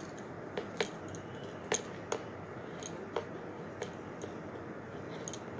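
Scattered light clicks and ticks, about ten of them at uneven intervals, from hands twisting a thin beading wire around a pearl bead.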